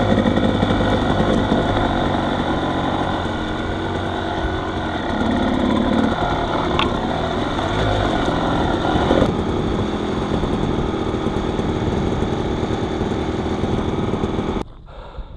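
Off-road vehicle engine running as it rolls slowly along a dirt trail and slows to a stop. The engine sound cuts off suddenly near the end, leaving faint wind noise.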